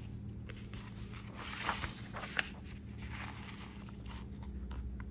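Paper book pages rustling as a page is turned and the book is handled, with a couple of brief sharper crackles of paper about two seconds in.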